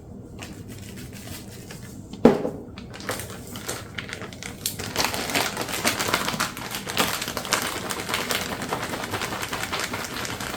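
Zip-top plastic bag holding flour, seasoning and a fish, crinkling and rattling in fast, continuous clicks as it is shaken to coat the fish. One sharp knock comes just before the shaking starts.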